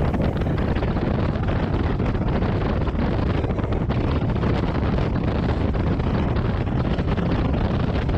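Wind rushing over the microphone of a Harley-Davidson Road Glide Limited touring motorcycle on the move, with a steady low rumble from the bike underneath.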